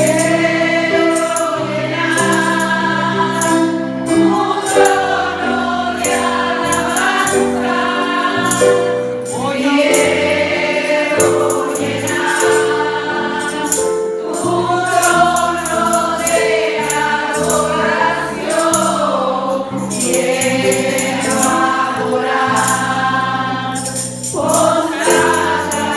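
Congregational gospel praise music: a group of voices singing over a band with bass, held keyboard chords and a steady beat of tambourine or similar hand percussion.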